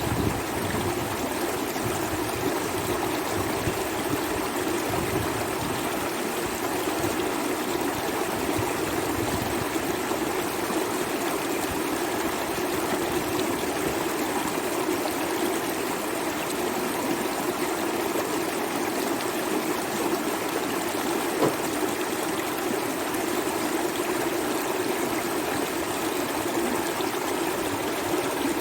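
Steady rush of a flooded river's fast-flowing water, with one brief knock about two-thirds of the way through.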